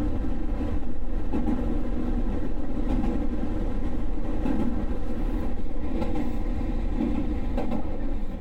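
JR Nara Line electric train running on the rails: a steady low rumble with a hum of several steady tones.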